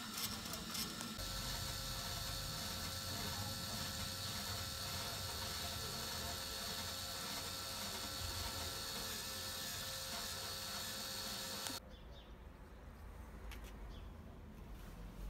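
Barbecue rotisserie's drive turning its toothed gear wheel: clicking at first, then a steady mechanical whirr with a faint whine. It cuts off suddenly about 12 seconds in, leaving a much quieter background.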